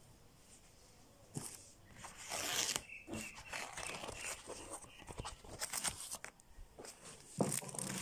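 Close, irregular rustling and crinkling from hands handling wrapping material, with scattered clicks and scrapes.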